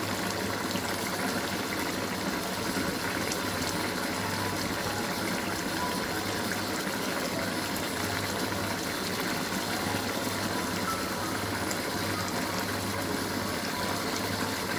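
Mrigal fish curry boiling hard in a pan on a gas burner: a steady bubbling hiss.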